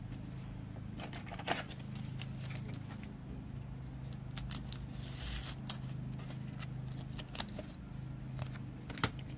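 Trading cards being handled: scattered light clicks and soft rustles of card stock over a steady low electrical hum.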